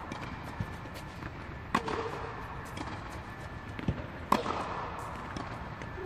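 Tennis ball struck hard by a racket twice, about two and a half seconds apart, with fainter ball bounces on the court between. The hits echo in a large indoor tennis hall.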